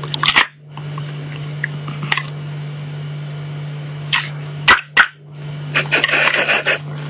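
Sharp plastic clicks and snaps from a spring-loaded dinosaur candy-holder toy as its arm pulls back and swings out, over a steady low hum. A short burst of scuffling noise comes near the end.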